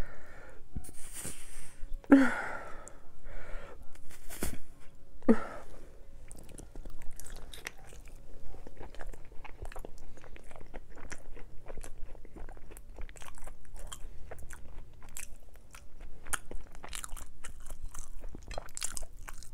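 A person biting into and chewing a sope, a thick fried masa cake topped with lettuce and cream, heard close up as many small crunches and wet mouth clicks.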